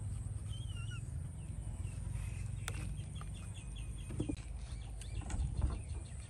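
Birds chirping over a steady outdoor background: a warbling call about half a second in and a quick run of repeated short notes around the middle. A couple of dull knocks come near the end.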